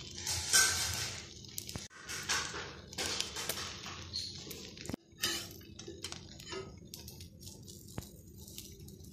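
Beaten egg frying in a pan under slices of bread: uneven sizzling and crackling with a few sharp clicks, cut off abruptly about two seconds and five seconds in.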